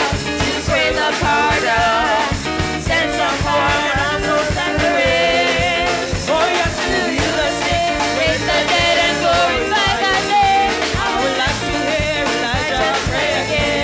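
Live gospel praise-and-worship song: several women's voices singing together into microphones over a drum kit keeping a steady beat.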